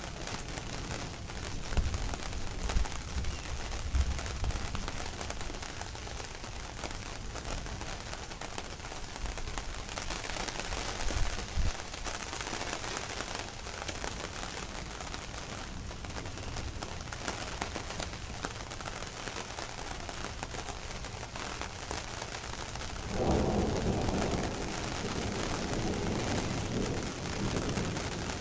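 Heavy rain falling steadily through a thunderstorm. Low rumbles of thunder come a few seconds in, and a louder rumble sets in near the end.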